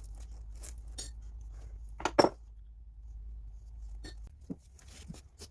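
Small metal parts and hand tools clinking and knocking as they are handled during motorcycle stator replacement work, with a sharp pair of knocks about two seconds in.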